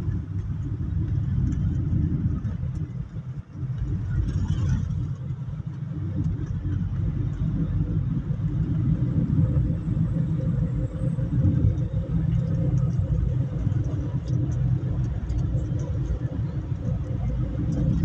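Moving car's road and engine noise heard from inside the cabin: a steady low rumble.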